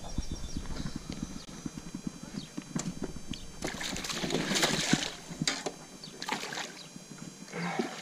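A hooked bass thrashing and splashing at the surface beside the boat as it is brought in, in several bursts, the biggest about four to five seconds in. A quick run of small clicks and knocks comes before the splashing.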